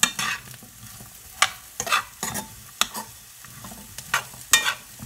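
A utensil stirring chopped cauliflower in a frying pan of butter-sautéed vegetables: irregular scrapes and knocks against the pan over a light sizzle.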